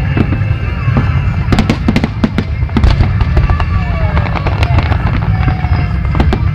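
Aerial fireworks bursting in quick succession, many sharp bangs and crackles over a constant low rumble.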